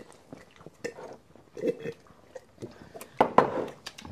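Close-miked eating sounds: chewing, lip smacks and sips of a soft drink from a glass mug, heard as scattered soft clicks and wet mouth noises, with a louder mouth sound about three seconds in.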